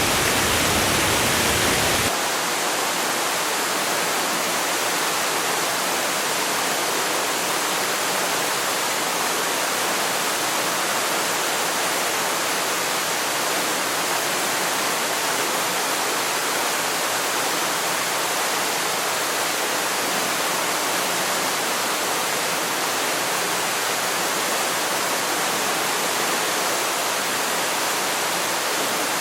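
Waterfall rushing: a steady, even roar of falling water. About two seconds in, the deepest rumble drops away and it becomes slightly quieter, then it runs on unchanged.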